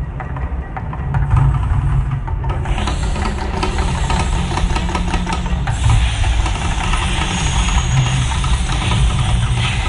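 Deep, steady rumble from a man-made volcano attraction's show, joined about three seconds in by a loud, lasting hiss, like rushing fire jets or spraying water.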